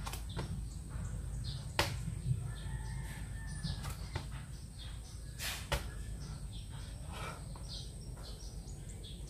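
Birds chirping over a low steady rumble, with a few sharp knocks, the clearest about two seconds in and twice in quick succession around five and a half seconds.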